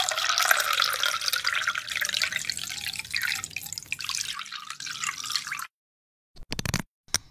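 Liquor poured into a round glass infusion jar packed with mulberries, fruit and rock sugar: a steady splashing trickle that stops about five and a half seconds in. Two brief noises follow near the end.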